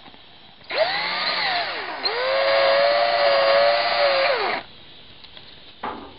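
Electric drill boring out a hole in a plastic panel to enlarge it. A first run of about a second sags in pitch under load, then a steadier run of about two and a half seconds winds down at the end.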